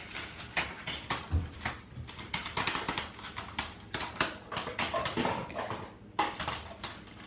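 Popcorn kernels popping in a Jiffy Pop foil pan on a stovetop: irregular sharp pops, several a second. The foil dome has burst, so kernels pop out into the open.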